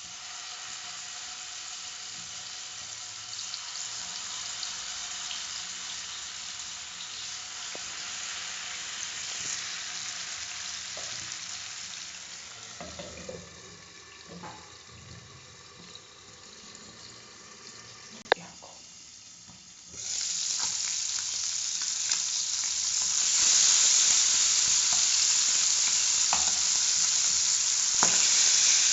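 Masala-coated fish steaks sizzling in hot oil in a non-stick frying pan. The sizzle is quieter through the middle, with a few clicks and one sharp clack, while a glass lid covers the pan, then becomes much louder about two-thirds of the way through as the fish fries uncovered.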